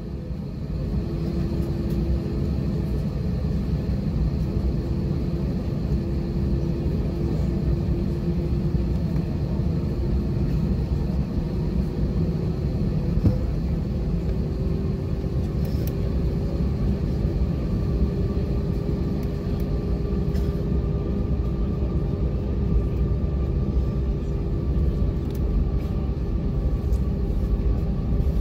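Airbus A320 cabin noise while taxiing onto the runway: a steady low rumble from the engines at taxi power, with a steady hum that rises slightly in pitch about halfway through.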